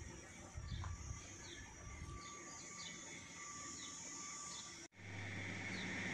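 Birds chirping in short, high, falling chirps that repeat every half second or so over outdoor background noise, with some low rumbling in the first two seconds. About five seconds in, the sound cuts out for an instant and gives way to a steadier hiss and hum.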